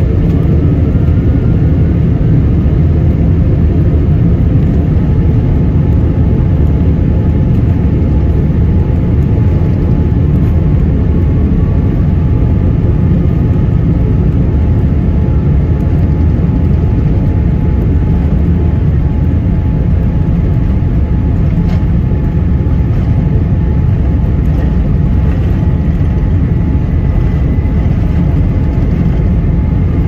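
Steady low rumble of a jet airliner rolling along the ground, heard from inside the passenger cabin, with faint engine whines that slowly rise in pitch now and then.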